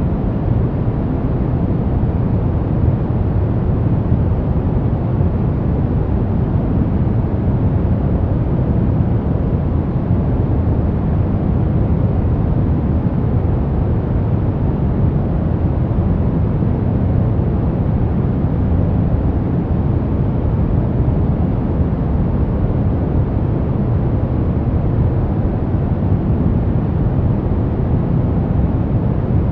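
Continuous steady noise from a sleep and relaxation white noise track, unchanging throughout; most of its weight sits low, so it sounds like a deep, even rush rather than a bright hiss.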